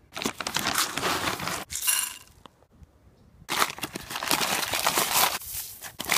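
Dry cat food kibble poured out of its bag, rattling onto a plate for about a second and a half; after a pause, granulated sugar is poured from its paper bag with crinkling and a hiss for about two and a half seconds.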